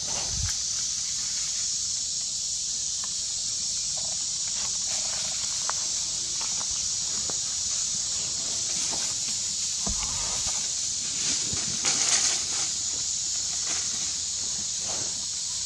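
Steady high-pitched hiss of outdoor ambience, with scattered faint rustles and clicks in dry leaf litter. There is a brief louder rustle about twelve seconds in.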